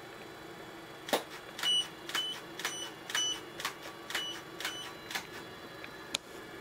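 A 100-megapixel medium-format camera's shutter firing a series of about ten frames, roughly two a second, most with a short high beep after the click, as photogrammetry scan shots are taken; a steady low hum runs underneath.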